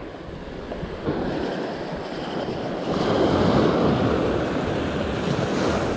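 Small waves breaking and washing up a sandy beach, with wind on the microphone; the wash swells louder about three seconds in.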